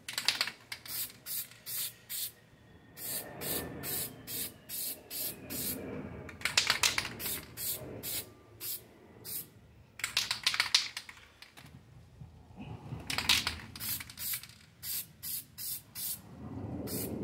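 Aerosol spray-paint can spraying a bottle in many short bursts, in quick runs of about three a second. A few longer sprays, each about a second, come around the middle.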